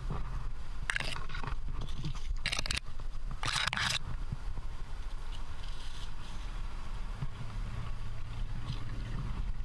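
A climber's shoes, hands and gear scraping and crunching against rock, in a few short scrapes during the first four seconds, over a steady low rumble.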